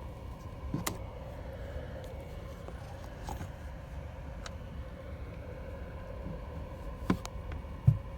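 Small electric fan running with a steady hum, broken by a few light clicks and a sharper knock near the end.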